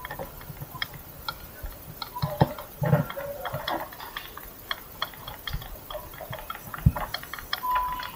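Scattered light clicks and knocks: handling noise of a handheld action camera on a plastic-bottle handle mount as it is carried about, with a brief steady tone near the end.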